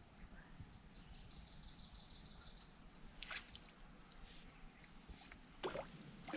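Faint sounds of wading and spear-fishing in a shallow stream: small sloshes of water and a few short, sharp clicks as a bamboo fishing spear is worked among submerged branches. A high, rapid trill of evenly spaced chirps runs for about two seconds near the start.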